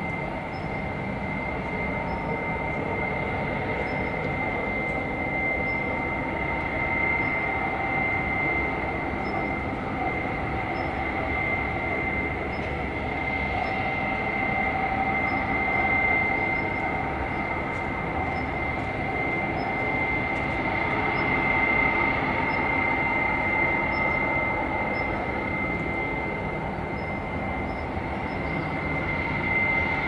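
Steady mechanical rumble with a constant high-pitched whine over it, unbroken throughout.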